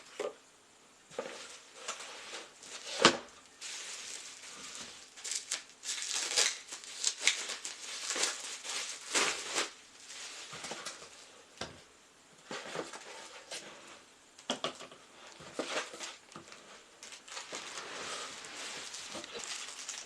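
Packaging rustling and crinkling as a vegetable shredder is unpacked, with irregular clicks and knocks of its parts being handled. A sharper knock comes about three seconds in.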